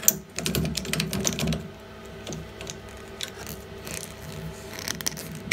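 Red-handled pliers working on the compression fitting of a copper pipe: a quick run of small metal clicks and scrapes in the first second and a half, then a few scattered clicks.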